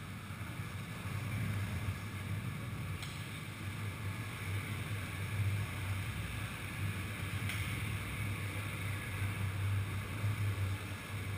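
Skateboard wheels rolling on a concrete parking-garage floor: a steady low rumble that swells and eases, with two faint clicks about three seconds and seven and a half seconds in.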